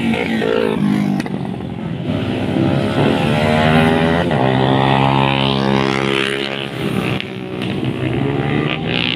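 Sport motorcycle accelerating hard past the roadside, its engine pitch climbing and changing sharply about four seconds in before holding a high note. The sound dips near seven seconds as more motorcycles come on.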